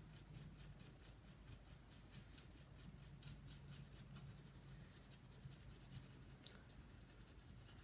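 Old toothbrush scrubbing a Mac Mini logic board wet with isopropyl alcohol: faint, quick back-and-forth bristle strokes, several a second, thinning out toward the end, cleaning solder residue off after soldering.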